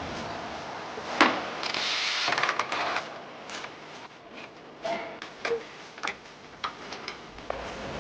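Tools and suspension parts being handled during a ball-joint repair: a sharp knock about a second in, a rasping noise lasting about a second and a half, then scattered clicks and knocks.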